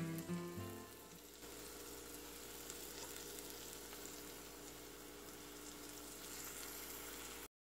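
Masala and chopped tomatoes frying in oil in a saucepan: a faint, steady sizzle. Background guitar music fades out in the first second, and the sound cuts off suddenly near the end.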